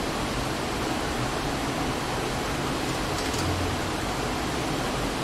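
Steady, even hiss of room and recording noise, with no speech.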